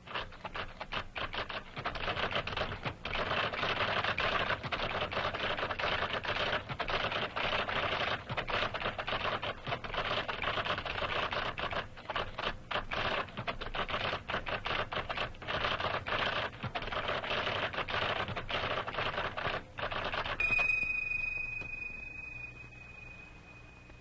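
IBM electric typewriter's typeball element typing at high speed, a dense run of rapid clicks that includes its lift-off correction of a typed mistake. The typing stops about twenty seconds in, and a single bell-like ringing tone follows and fades away.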